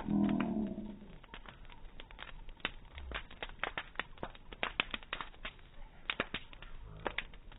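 Bonfire crackling and popping, with many irregular sharp snaps over a faint hiss. A low, drawn-out voice-like sound fills the first second, and a soft low thump comes about three seconds in.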